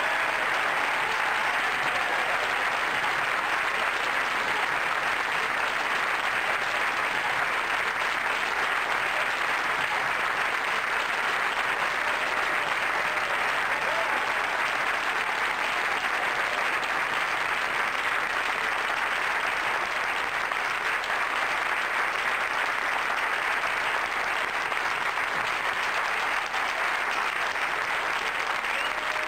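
Live theatre audience applauding, a long steady round of clapping that holds at an even level throughout.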